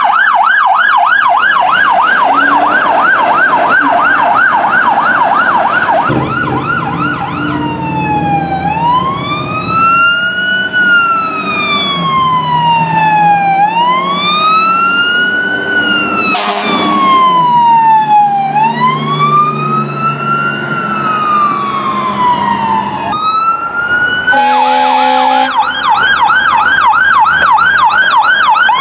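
Emergency vehicles' electronic sirens passing. First comes a fast yelp, then a slow rising-and-falling wail with a short horn blast about halfway through. Near the end there is a brief steady horn blast and a fast yelp again.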